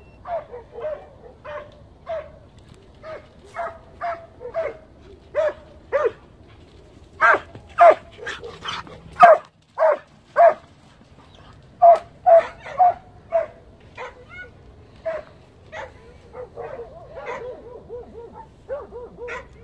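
Zagar hunting hound baying at a wild boar: a long run of repeated barks, about one or two a second, loudest in a burst through the middle, with quicker, fainter yelps near the end.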